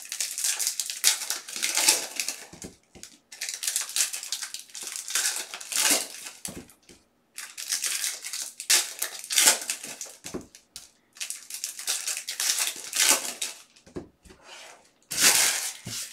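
Foil wrappers of trading-card packs crinkling and tearing as the packs are torn open and handled. It comes in spells of a couple of seconds with short pauses between them.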